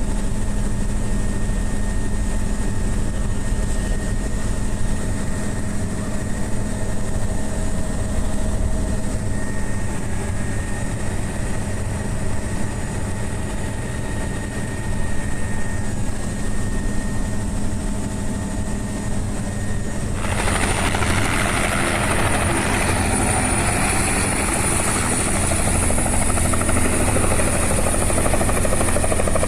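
Helicopter's turbine and rotor running steadily in flight, a constant drone with steady tones. About two-thirds of the way through, a louder rushing noise and a high-pitched whine come in suddenly over it.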